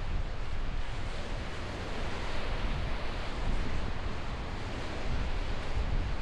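Surf washing on a beach, a steady rushing noise, with wind buffeting the microphone in low rumbles.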